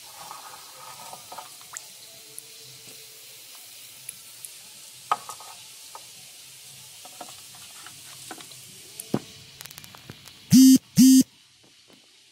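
Live climbing perch and other fish stirring in a steel bowl of water: faint fizzing of surface bubbles with scattered small plops and ticks. Near the end come two loud, short honks of one steady pitch, about half a second apart.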